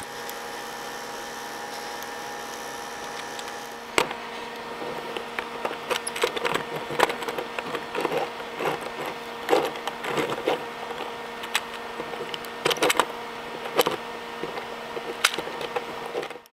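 3D-printed plastic geared kinetic sculpture turned by hand, its interlocking gear pieces clicking and rattling irregularly from about four seconds in, over a steady hum.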